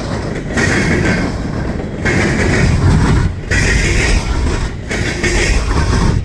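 Norfolk Southern train's cars rolling past on the rails, loud and steady, with brief drops in level about three and a half and five seconds in.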